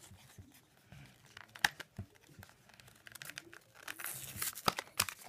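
Plastic blister pack of trading cards crinkling and crackling as fingers pick and peel at its corner, with a few sharp plastic clicks, the loudest about one and a half seconds in.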